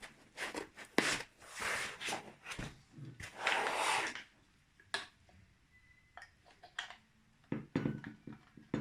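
Handling noise while a side handle is fitted to a cordless angle grinder: clicks and knocks of plastic and metal parts, with two stretches of rubbing or scraping in the first half and scattered small clicks after.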